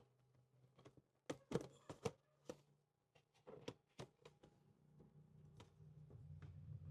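Faint scattered clicks and light knocks of motorcycle parts being handled, with a low steady hum coming up over the second half.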